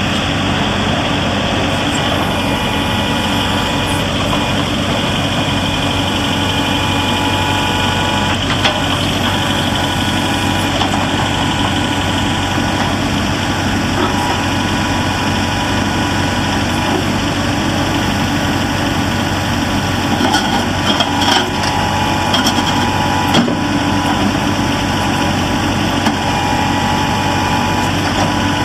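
Kubota L4701 tractor's diesel engine running steadily at idle, with a few short clicks and knocks over it about two-thirds of the way through.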